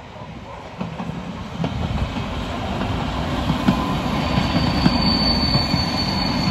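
ALn 668 diesel railcar approaching and passing, engine and wheels on the rails growing steadily louder, with clicks of the wheels over the rail joints. A high steady wheel squeal joins about four seconds in.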